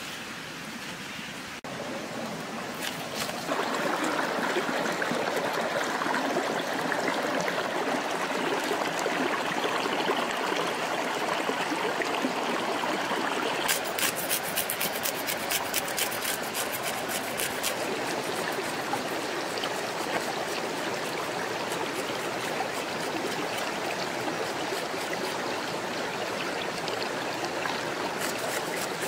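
A shallow rocky stream running steadily. For about four seconds midway, a quick run of sharp scraping ticks as a knife is worked over a fish on a wooden board, scraping off the scales.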